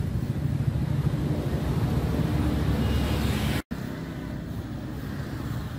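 Street traffic noise with wind buffeting the microphone as a steady low rumble. The sound cuts out for an instant about two-thirds of the way through, then goes on quieter.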